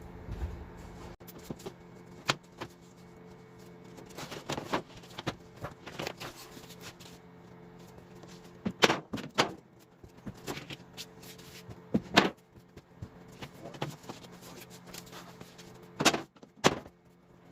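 Wooden floorboards knocking and clattering as they are handled and laid into a drift boat's floor, with several sharp knocks, the loudest about nine, twelve and sixteen seconds in.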